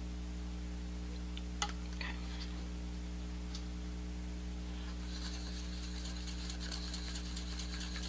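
Two light taps about one and a half to two seconds in, then from about five seconds in a quick, steady scraping: a craft stick stirring acrylic paint and water in a paper cup.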